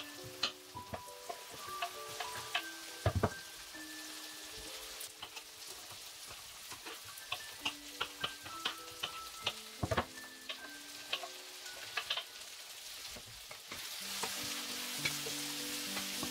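Kitchen knife chopping bell peppers on a wooden cutting board, sharp uneven taps with a couple of heavier knocks, over onions sizzling in a frying pan. Near the end the sizzle grows louder as the diced peppers go into the hot oil and are stirred.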